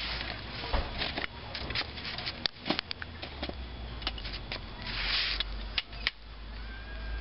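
Glowing charcoal briquettes in a grill crackling and popping with scattered sharp clicks, and a short hiss about five seconds in, over a low steady rumble.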